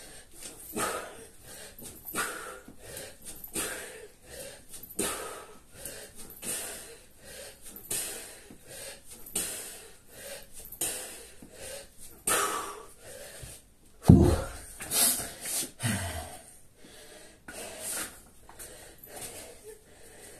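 A man breathing hard: a forceful exhalation about every second and a half in rhythm with kettlebell swings. About fourteen seconds in there is a heavy thud as the kettlebell is set down, then a few big breaths and quieter panting.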